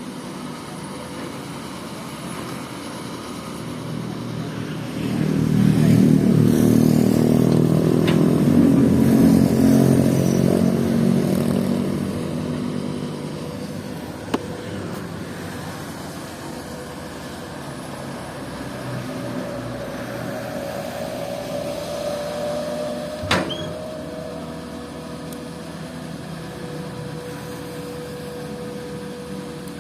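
Komatsu PC200 hydraulic excavator's diesel engine running, working up louder about five seconds in for several seconds before easing back to a steady run. Two sharp knocks come partway through, the second the louder.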